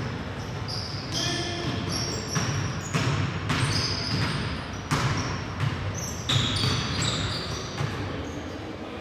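Basketball bouncing on a gym court during play, irregular sharp knocks, mixed with short high squeaks and a low murmur of voices in the hall.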